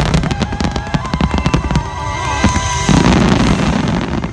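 Aerial fireworks shells bursting: a rapid run of bangs and pops, with a heavier boom about three seconds in.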